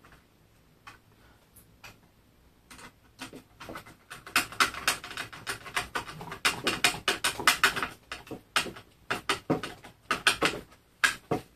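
A hand screwdriver driving a screw into the blade-disc cover of a robotic lawn mower, making quick small clicks and rattles that start about three seconds in.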